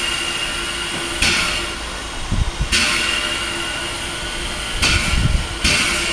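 A České dráhy class 310 steam locomotive standing, giving off sharp hisses of steam that start suddenly and fade away, one every second or two. There are a couple of low thumps in the middle.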